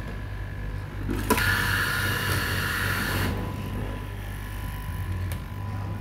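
Electric straight-knife fabric cutting machine running with a steady low motor hum. Just over a second in, a click is followed by about two seconds of louder, hissing buzz as the reciprocating blade cuts through the stacked T-shirt fabric.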